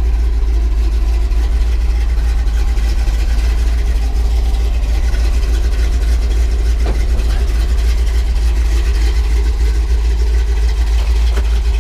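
A 5.7-litre (350) Chevrolet V8 with a competition cam, Hooker headers and a Flowmaster-type exhaust, idling steadily.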